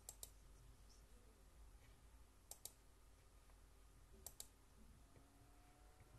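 Near silence broken by three faint double clicks, about two seconds apart.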